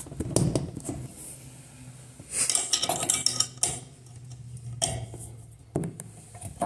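A steel Allen key clinking and scraping against the set screw and chrome body of a tub spout while the set screw is tightened. The clicks come in short scattered clusters with gaps between them.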